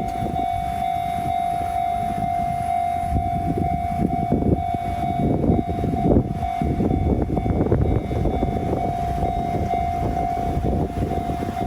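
Japanese railroad crossing alarm ringing with a steady tone, over the rumble of a train.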